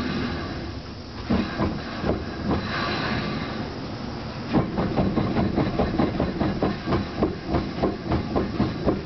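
Mazda RX-7 FC's rear differential making an abnormal knocking noise over steady running noise: a few scattered knocks at first, then about halfway through a regular clunking about three times a second.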